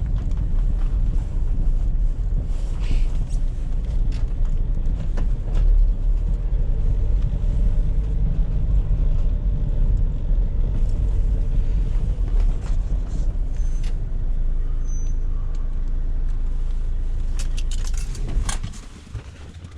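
A vehicle's engine running with a steady low rumble; near the end the rumble cuts out and a few sharp clicks follow.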